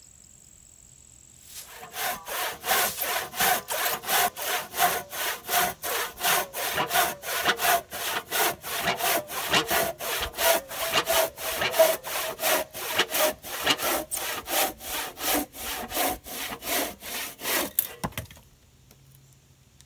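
A handsaw crosscutting a cedar billet in steady back-and-forth strokes, about two and a half a second. The sawing starts about two seconds in and stops shortly before the end with a single knock.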